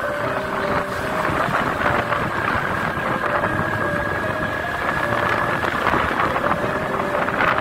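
Honda Beat CBS automatic scooter on the move: wind rushing over the microphone over the steady engine and road noise.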